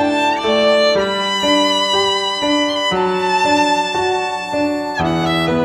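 Background music: a violin playing a melody of held notes over a sustained low note that changes every couple of seconds.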